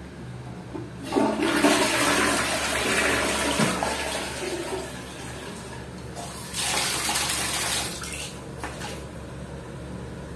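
Toilet cistern flushed with its push button: a loud rush of water starts about a second in and fades over about three seconds. Later a plastic tap runs briefly into a plastic bucket of water, with a shorter second burst soon after.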